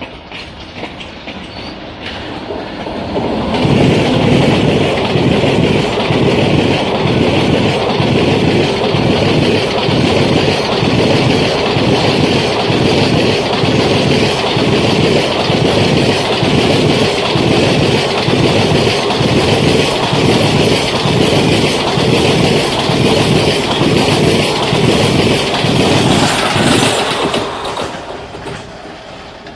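Indian Railways express of ICF passenger coaches passing close by at speed, the wheels beating a steady clickety-clack over the rail joints under a rushing hiss. It builds up about three seconds in as the train arrives and fades away near the end as it recedes.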